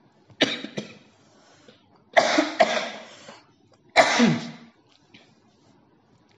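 A man coughing in three bouts: a quick double cough near the start, a harder double cough about two seconds in, and a single cough at about four seconds.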